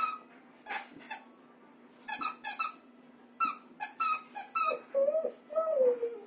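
The squeaker in a plush platypus toy squeaking over and over as a Siberian husky chews on it: about a dozen short, high squeaks that come faster in the second half. Near the end come two longer, lower squeals, the last one falling in pitch.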